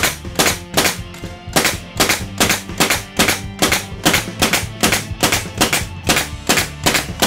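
18-gauge pneumatic brad nailer fired in quick succession in sequential mode, driving 1-1/4 inch brad nails into wood: a rapid, fairly even run of sharp shots, about two to three a second.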